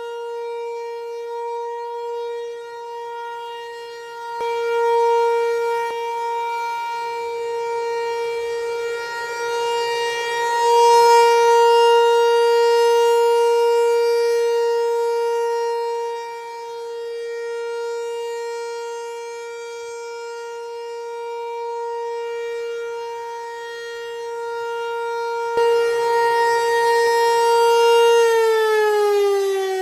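Outdoor tornado warning siren sounding a steady tone on its weekly test, slowly swelling and fading in loudness. Near the end its pitch begins to fall as it winds down.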